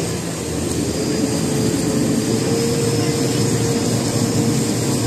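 Water taxi's motorboat engine running steadily under way, with a steady hum that rises slightly in pitch about a second in, over a constant rush of water and wind.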